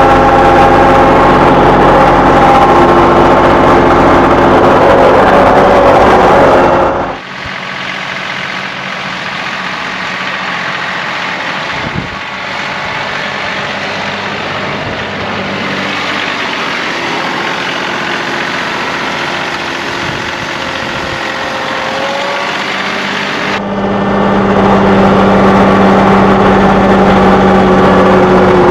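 A vehicle engine running steadily. About seven seconds in it drops suddenly to a quieter, duller engine hum, and the louder running comes back a few seconds before the end.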